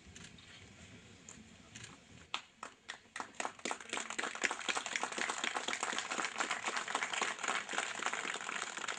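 Crowd applauding: a few scattered claps about two seconds in, building quickly into steady applause.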